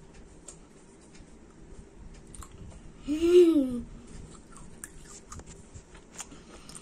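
A child chewing grapes, with faint soft wet clicks throughout. About three seconds in, a short vocal sound from the child, rising and then falling in pitch, is the loudest thing.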